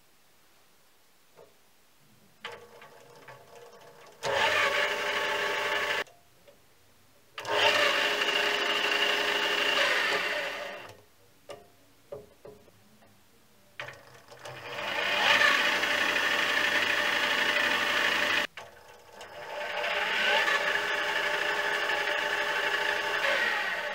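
Mini lathe spindle, driven by a sewing-machine motor, switched on and off with its start/stop lever: four runs of a steady whine from the motor and gearing. Some runs start and stop abruptly; others swell up or fade out as the lever varies the spindle speed.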